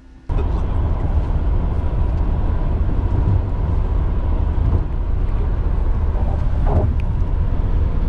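Car cabin noise at highway speed: a loud, steady low rumble of tyres and engine heard from inside the car, cutting in abruptly just after the start.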